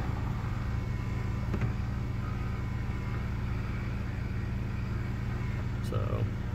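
Steady low hum of a 2017 Dodge Grand Caravan idling with its HVAC system running.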